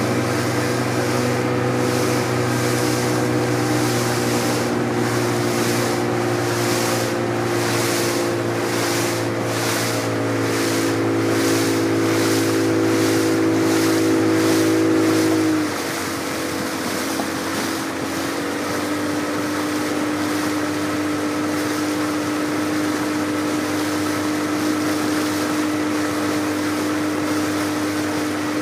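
Motorboat engine running steadily underway, with water hissing along the hull in a pulsing rhythm. About halfway through, the engine note drops as the throttle is eased, then settles at a slightly lower, steady pitch.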